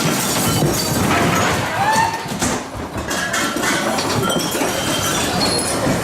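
Loud, continuous crashing and clattering with clinking and breaking of glass and crockery, as loose furniture and objects slide and smash aboard the listing Viking Sky cruise ship.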